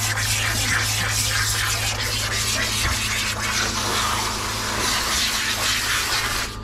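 Water spraying steadily from a hand-held shower sprayer onto a wet dog's coat in a plastic grooming tub, over a steady low hum.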